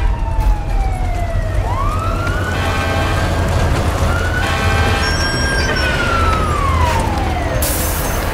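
Fire engine siren wailing: its pitch slides slowly down, climbs and holds high, then falls away again, over the low rumble of the fire trucks' engines. A short burst of hiss comes near the end.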